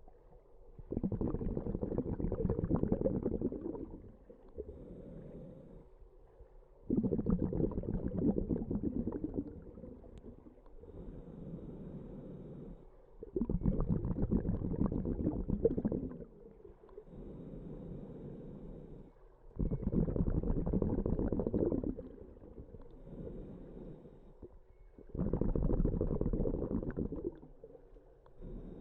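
A diver breathing underwater through a scuba regulator: five slow breaths about six seconds apart. Each exhalation is a bubbling gurgle lasting about three seconds, with a quieter inhalation between.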